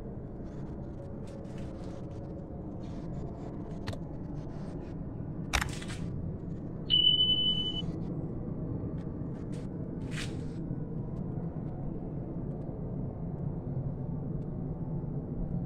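Small clicks and rustles of hands working copper bonsai wire around the twigs of a yangya bonsai, over a steady low background rumble. A single steady high beep, just under a second long, sounds about seven seconds in and is the loudest thing.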